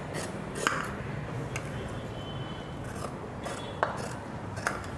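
Large tailoring scissors cutting through printed dress fabric along a marked curve, the blades giving a short crisp snip roughly once a second.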